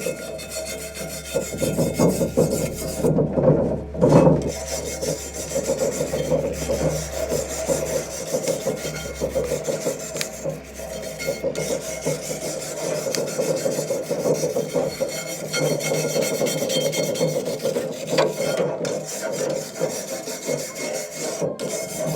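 Wire brush scrubbing a cast iron pan in rapid back-and-forth scraping strokes, with only brief breaks. It is stripping the old crust off toward bare iron.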